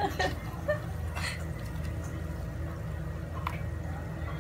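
A steady low hum, with a few light clicks and taps as onion slices are dropped by hand onto raw crabs in a pan.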